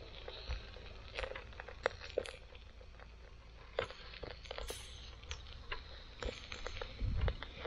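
Metal tongs clicking and tapping against the wire grill of a charcoal shichirin stove as slices of lamb are turned, in short irregular clicks. Wind buffets the microphone with a low rumble near the end.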